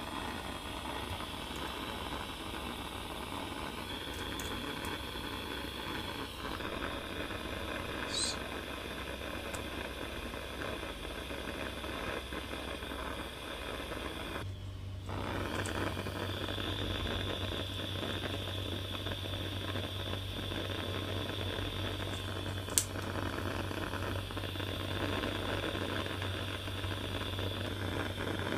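Steady background hiss with no clear single event; after a short break about halfway through, a low electrical hum joins it, and a faint click sounds twice.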